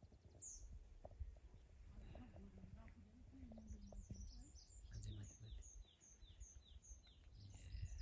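A songbird calling faintly: one short high note about half a second in, then a quick regular series of short, high, falling notes at about three a second through the second half. A faint low rumble lies underneath.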